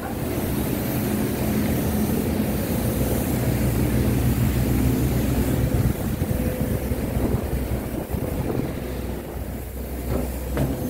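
Wind buffeting the microphone over a steady low machinery hum. The loudness swells a little through the middle and eases near the end.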